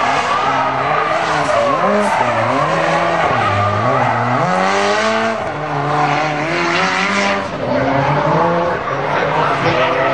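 Turbocharged SR20DET four-cylinder of a Nissan S13 drift car, its revs rising and falling again and again as the car drifts, with the rear tyres sliding and smoking.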